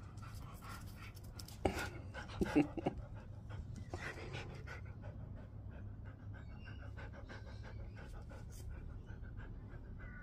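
Husky panting in quick, even breaths close by, with a few brief, louder noises about two seconds in.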